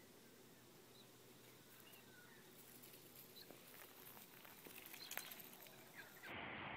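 Near silence with faint pattering and scratching from cats' paws on dry pine needles and claws on tree bark. It grows busier toward a sharper scrape about five seconds in, and a few faint high chirps come through. Near the end it is cut off by a louder steady hiss.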